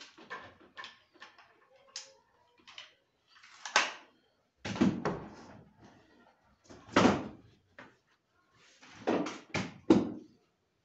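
Cedrinho wood ceiling boards being handled and pushed into place in a wooden frame jig on a workbench. Irregular wooden knocks, thumps and scrapes, the loudest about halfway through and near the end.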